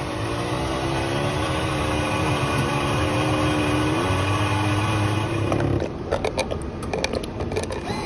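Keurig Eccellenza Touch coffee machine running with a steady machine hum while it brews, then from about six seconds in a string of rapid clicks and spits as the first coffee sputters into the paper cup.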